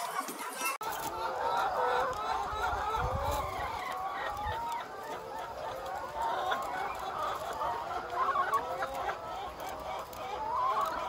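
A flock of hens clucking and calling over one another in short, rising and falling notes, with a low rumble about three to four and a half seconds in.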